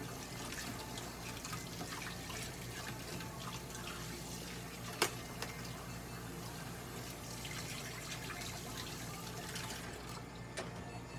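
Irregular wet squishing and crackling from a cat's ear being massaged at its base to work ear drops into the ear canal, over a steady low hum, with one sharp click about five seconds in.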